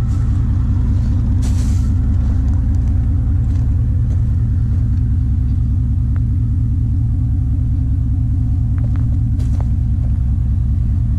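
Supercharged 2001 Dodge Ram 1500's 5.2-litre V8 idling steadily with a low, even note.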